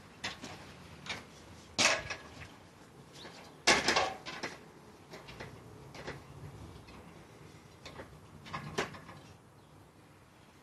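Scattered knocks and clanks from an aluminium extension ladder as it is handled and climbed, loudest about two and four seconds in, with another near nine seconds.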